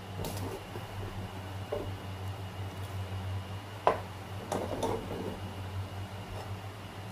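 Wooden spatula scraping and knocking in a nonstick wok as the cooked stir-fry is scooped out, with one sharper knock about four seconds in. A steady low electrical hum runs underneath.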